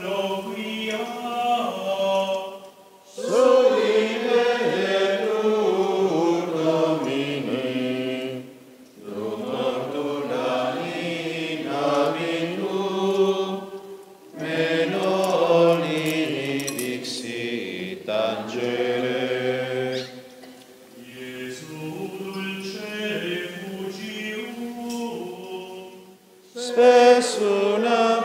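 Friars' male voices singing a Latin liturgical chant together, in sung phrases of about five seconds each with short breaks for breath between them.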